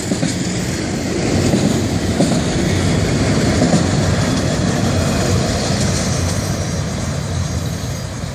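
Freight cars of a Florida East Coast Railway train rolling past, a steady rumble of steel wheels on the rail that eases off somewhat near the end as the last cars go by.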